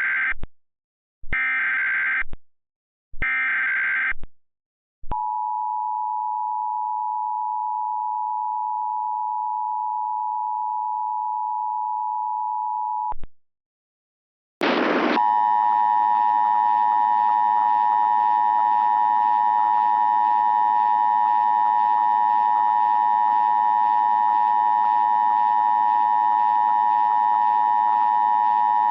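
Emergency Alert System tones: three short bursts of SAME digital data warble, then the two-tone attention signal, a steady dual tone near 900 Hz, held for about eight seconds. After a short gap and a loud burst, a louder, harsher continuous tone near 1 kHz comes in, thick with overtones and noise.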